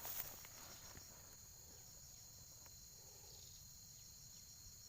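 Faint, steady, high-pitched insect chorus with a regular pulsing trill. A brief rustle right at the start.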